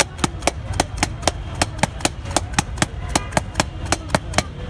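Stainless-steel mixing tumbler being shaken to toss chanachur, clacking sharply and evenly about five times a second.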